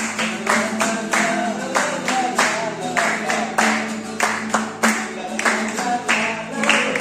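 Live Goan folk music: a violin and singing voices, with onlookers clapping along in a steady beat of about two to three claps a second.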